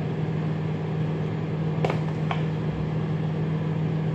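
A steady low mechanical hum, with two light clinks of a metal spoon against a wine glass about two seconds in, as fruit filling is spooned in.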